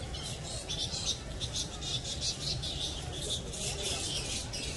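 A roosting colony of fruit bats squeaking and chattering: many rapid, overlapping high-pitched squeaks, over a low steady rumble.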